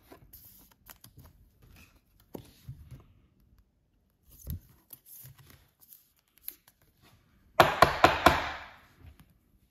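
Plastic card sleeve and rigid top loader being handled: faint scattered clicks, then about eight seconds in a louder run of sharp clicks and scraping as a sleeved trading card is slid into the top loader.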